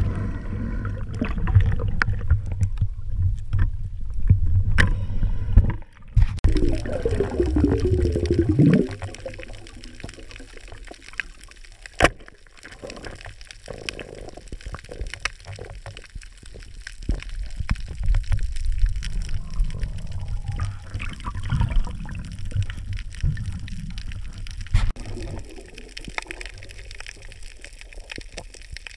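Underwater sound around a diver's camera: water gurgling and rushing, loud and low for the first six seconds, with a short wavering muffled tone just after. Then quieter water hiss with many faint clicks, and one sharp click about twelve seconds in.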